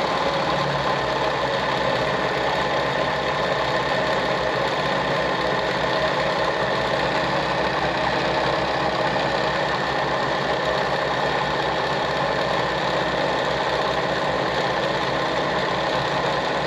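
Singer 306M zigzag sewing machine running steadily at speed, sewing a decorative stitch pattern set by an interchangeable disc cam.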